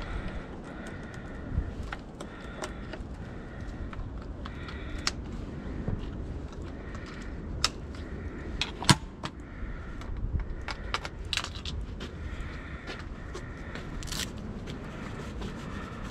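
Scattered clicks, taps and light rattles from handling an electric dirt bike's handlebar and its camera mount, with one sharp click about nine seconds in.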